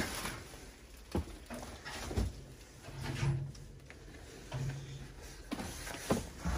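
Footsteps and scattered knocks on a debris-strewn wooden floor, about four sharp knocks a second or more apart, with two short low sounds in between.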